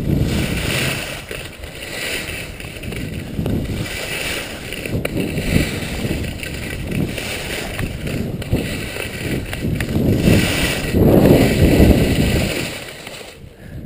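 Alpine skis scraping and rasping over dry, unwatered plastic mesh dry-slope matting during a fast downhill run. The noise swells and fades with each turn and is loudest near the end.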